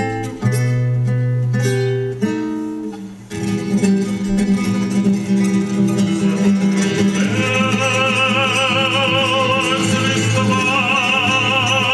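Acoustic guitar playing the introduction to a song, plucked notes over low bass notes, then fuller playing. About seven seconds in, a singing voice with vibrato comes in over the guitar.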